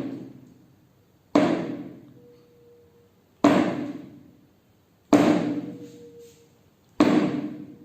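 A tuning fork struck four times against a hard surface, each knock dying away over about a second. After two of the strikes the fork's faint steady tone can be heard ringing on.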